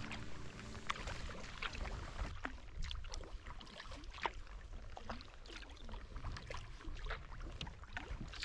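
Kayak paddle strokes on calm water: blades dipping in, with scattered drips and small splashes off the paddle over a low rumble.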